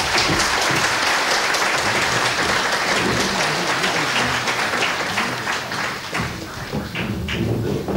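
A large audience applauding, a dense patter of many hands clapping that thins a little near the end.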